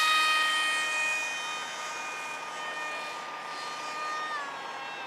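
Radio-controlled model jet's motor whining at high throttle, a steady high-pitched tone that fades as the plane flies off. About four seconds in, the pitch drops slightly as the throttle eases.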